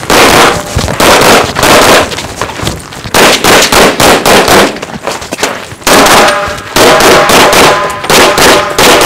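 Rapid gunfire from a compensated SVI 9mm Major race pistol, the shots coming mostly in quick pairs, two per target. There is a short break of about a second near the middle before the shooting resumes.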